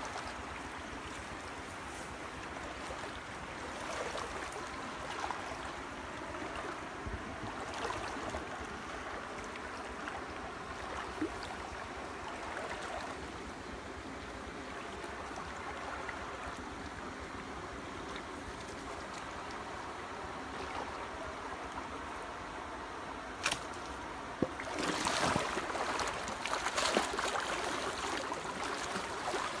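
Water sloshing and swirling around a person wading through a shallow stream, steady for most of the time, with a sharp click about 23 seconds in and louder, choppier splashing over the last few seconds.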